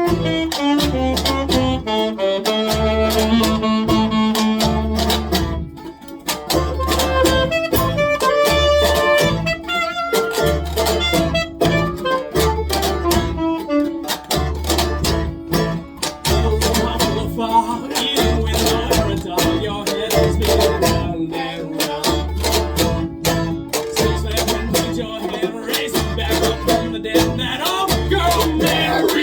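Live band playing an instrumental passage of a loud song with a steady beat and bass.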